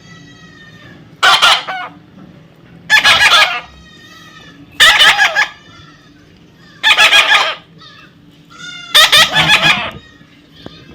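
Parrot giving five loud, harsh screeching calls about two seconds apart, each a rapid rattling squawk, with softer chirps in between.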